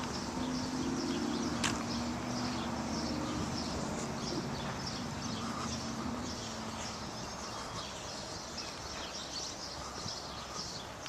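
Outdoor ambience of small birds chirping over and over, over a low engine-like hum that fades away by about halfway through. A single sharp click comes early on.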